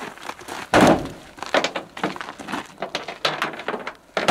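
A dead coyote's carcass dropped onto a pickup's ribbed tailgate liner with a heavy thump about a second in, followed by scuffing and clicking as it is handled, and another sharp knock near the end.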